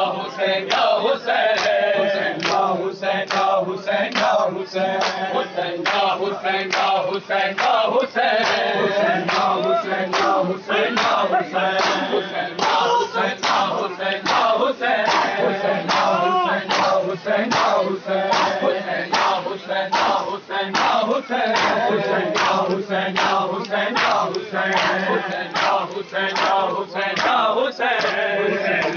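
A large crowd of men chanting a nauha (Shia mourning lament) together, keeping time with matam: hands striking chests in a steady, regular beat.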